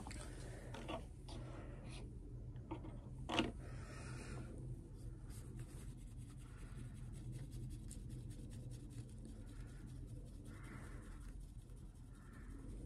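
Cotton swab rubbing over the varnished wood of a music-box lid to take off the old varnish: faint, soft scratchy strokes, several of them in the later seconds. A single sharp click comes a few seconds in, over a steady low hum.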